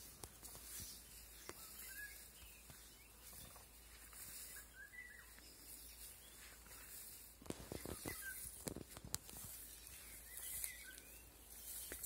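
Faint evening bird chorus: distant songbirds giving short chirping phrases every few seconds over a soft hiss, with a few soft knocks of handling or steps in the grass about two-thirds of the way in.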